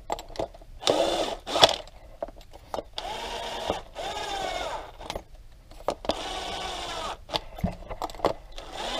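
Screwdriver driving the case screws into the plastic housing of a Schumacher battery maintainer: about four short spells of grinding, each around a second long, some with a squeaky tone that bends up and down, with light clicks between them.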